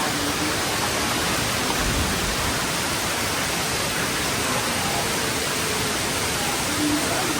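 Steady, fairly loud rushing noise spread evenly from low to high pitch, with no rhythm or engine note standing out.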